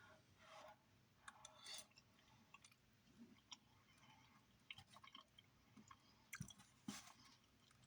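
A person chewing food quietly, with scattered soft mouth clicks and smacks.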